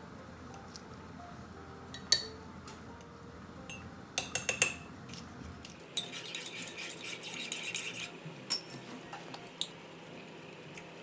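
Metal teaspoon clinking against ceramic mugs: a few separate taps, then rapid stirring clinks for about two seconds, starting about six seconds in, followed by a couple of single taps.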